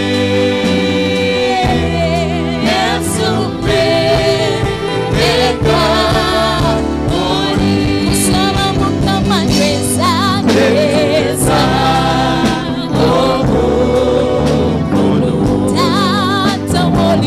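Live gospel praise singing: a woman's lead voice on microphone, with vibrato, and backing singers, over sustained electric keyboard chords.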